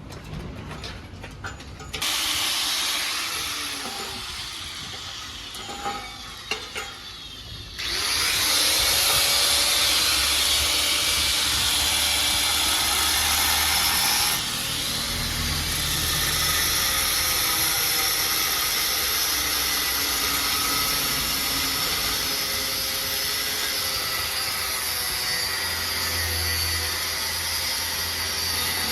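Angle grinder cutting the metal pipe of a motorcycle silencer to size: a steady hissing grind that starts about two seconds in, gets louder about eight seconds in and eases a little after fourteen seconds.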